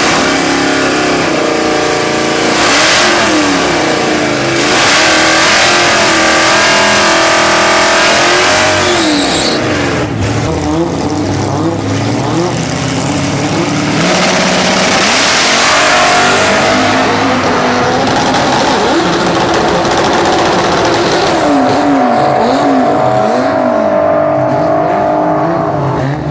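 2016 Ford Mustang Cobra Jet's Whipple-supercharged V8 revving hard at the start line and accelerating down a drag strip. The engine note climbs and falls again and again as it revs and shifts.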